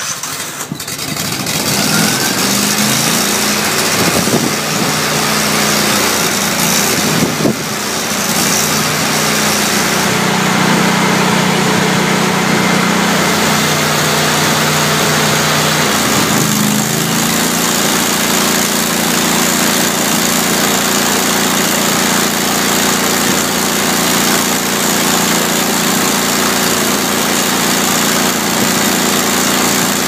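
Miller Bobcat 250 NT welder/generator's 20 hp engine, its carburetor freshly cleaned, starting and running. Its speed shifts up and down for the first several seconds, then holds steady and lower after about seventeen seconds. The hiss and crackle of a stick-welding arc runs over it.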